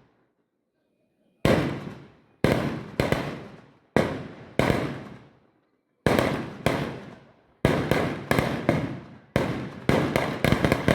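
Firecrackers going off in an irregular string of loud bangs, each with a short fading echo. They start after a moment of quiet and come more and more closely spaced toward the end.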